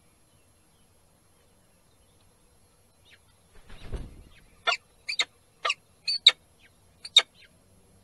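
A peregrine falcon arrives at the nest ledge with a brief rush of wing noise about three and a half seconds in. It is followed by a series of about eight short, sharp peregrine calls, some in quick pairs.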